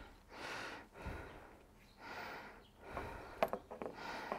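A man's breathing, faint puffs of breath roughly once a second, picked up close on a clip-on microphone, with a few sharp clicks of small parts being handled about three and a half seconds in.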